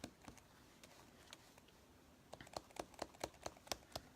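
Faint, quick tapping of a sponge brayer being pressed and lifted against cardstock while sponging ink. A few scattered taps come first, then a faster run of about four or five taps a second starting a little past halfway.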